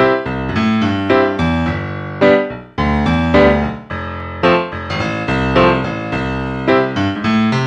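Background keyboard music: piano-like notes and chords, each struck sharply and then fading, a new one every half second or so.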